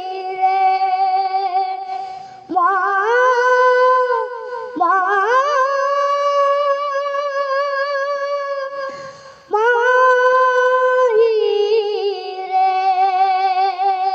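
A boy singing solo into a handheld microphone, a Hindi film-style song, with long held notes and vibrato. Each note slides up at its start, with short breaths between.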